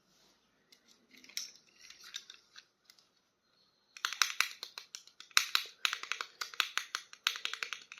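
Plastic toy packaging being handled: faint rustles at first, then about halfway in a dense run of sharp crinkling crackles.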